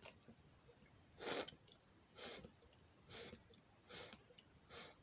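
A person gulping a drink from a can: five short swallows about a second apart, the first the loudest.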